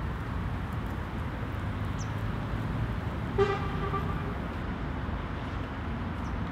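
A single short horn toot about halfway through, over a steady low outdoor rumble of traffic.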